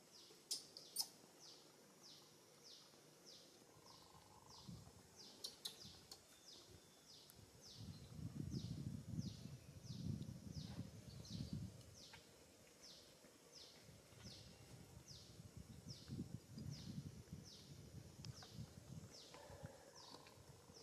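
Faint natural ambience: a short, high, falling chirp repeated steadily about every half second by a small calling animal. There are a few sharp clicks near the start, and two spells of low rumbling noise in the middle.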